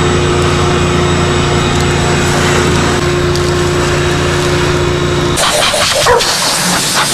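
Shop vacuum running steadily with a motor hum and a rushing hiss as it sucks debris out of an engine's open intake area; it cuts off about five seconds in, leaving scattered irregular noises.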